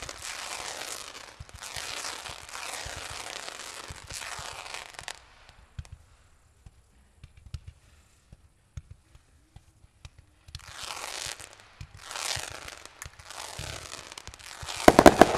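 Consumer firework cakes, Weco Elysium and Jorge X-ray, firing shot after shot, each shot a crackling burst lasting about a second. They go near-quiet for about five seconds midway, with only a few small pops. Near the end comes a rapid cluster of sharp bangs, the loudest moment.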